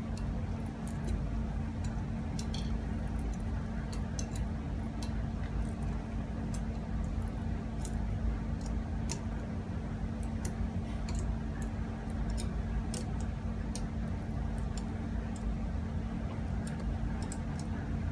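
Small metallic clicks and taps from two spanners working a 1/16-inch Swagelok compression nut tight, scattered irregularly throughout, over a steady low hum.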